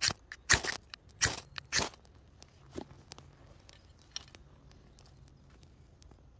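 Dry birch bark and forest litter crunching close to the microphone as tinder is handled: four loud crunches in the first two seconds, then faint scattered ticks and crackles.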